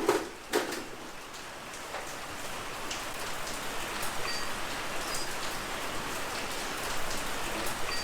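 Steady rain falling, an even hiss, with a couple of sharp knocks in the first second.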